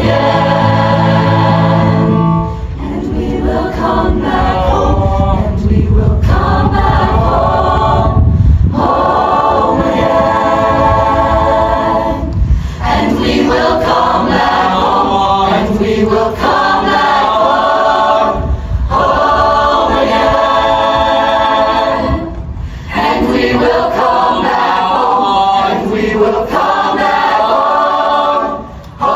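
High school show choir singing in full voice, phrase after phrase, with short breaths between phrases every few seconds.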